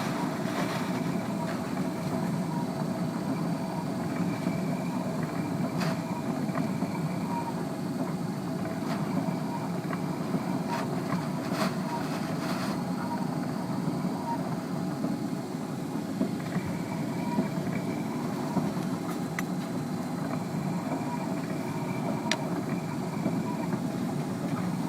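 Steady machinery hum: a constant rumble with several unchanging whining tones above it and a few faint clicks.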